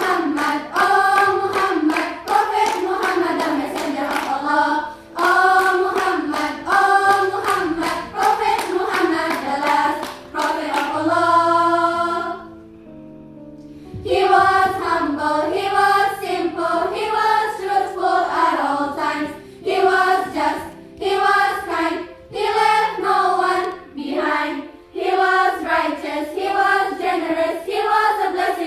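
A girls' choir singing together with hand claps in time. Near the middle the singing breaks off for about two seconds, then resumes.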